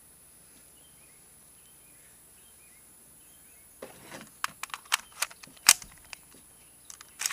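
A few faint bird chirps over quiet outdoor air, then, from about halfway, a string of about ten sharp clicks and knocks, irregularly spaced: gear being handled.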